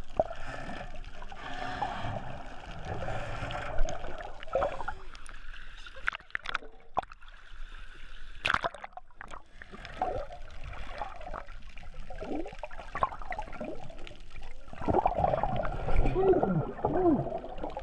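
Seawater sloshing and splashing around a camera at the surface as it dips in and out of the water, with gurgling underwater. The splashing grows louder and more agitated in the last few seconds.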